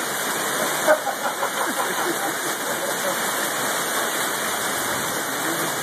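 Heavy rain and hail falling hard outside and on the porch roof: a dense, steady roar, with a sharp knock about a second in.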